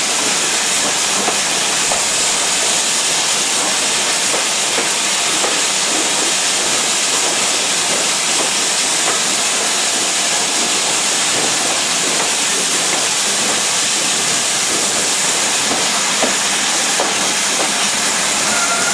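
GWR King class steam locomotive No. 6023 King Edward II standing with a steady hiss of escaping steam.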